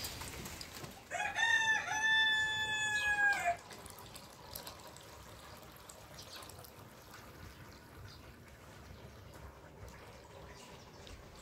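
A rooster crows once, lasting about two and a half seconds: a short rising opening note, then a long held note that ends about three and a half seconds in. After it, liquid trickles faintly as it is poured from a plastic jug into a metal pot.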